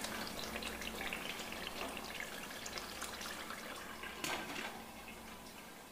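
Tomato stew frying in oil in a pot, with faint bubbling and crackling. About four seconds in a glass pot lid clinks onto the pot, and the frying then sounds quieter.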